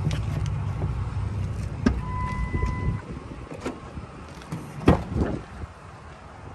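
Rear crew-cab door of a Ford F-150 pickup being opened by its outside handle: latch clicks, a steady electronic beep for about a second, and a loud knock a couple of seconds later, the loudest sound. Wind buffets the microphone during the first half.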